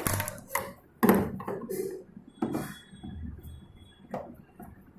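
Scattered knocks and clatter from hand tools and plastic and metal parts being handled while a semi-automatic washing machine is dismantled, with a sharp knock about a second in.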